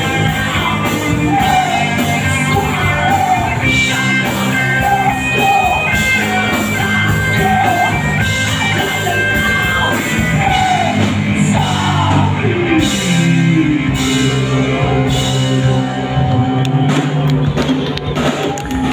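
Live rock band playing: electric guitars, bass and drum kit, with a male singer over roughly the first two-thirds before the instruments carry on without vocals.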